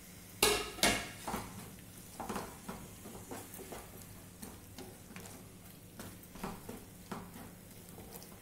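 Flat wooden spatula stirring and scraping a scrambled egg and vegetable mixture in a non-stick frying pan: irregular knocks and scrapes against the pan, the two loudest about half a second and a second in.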